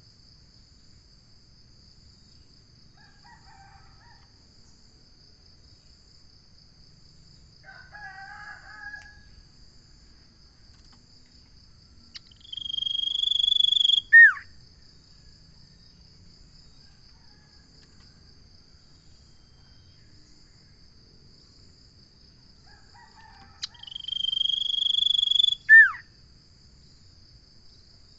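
Common iora singing: twice, a long steady whistled note of about two seconds ends in a quick sharply falling note, with softer chattering calls in between. A steady pulsing insect trill runs underneath.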